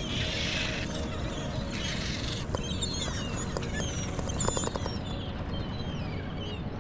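Many small, quick, high bird chirps over a steady rush of wind and water noise. Two short hissing rushes come in the first couple of seconds.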